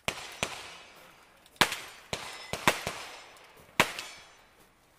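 Gunshots on a shooting range: several sharp cracks at irregular intervals, each trailing off in a short echo.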